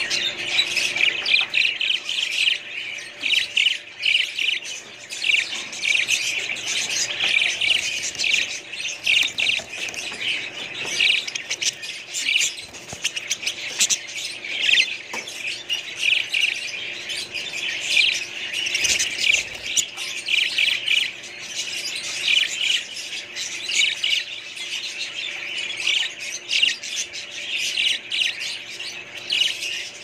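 A flock of budgerigars chattering: a constant stream of short overlapping chirps and squawks, with no pause.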